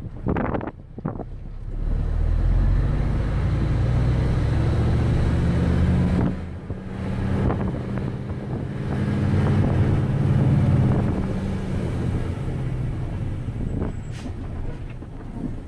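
Isuzu dump truck's diesel engine heard from inside the cab as the truck drives along, the engine sound building, dropping briefly about six seconds in, then building again before easing off.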